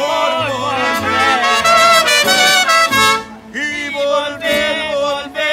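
Mariachi band playing, with violins and a low bass line under the melody. The music drops out briefly about three seconds in, then resumes.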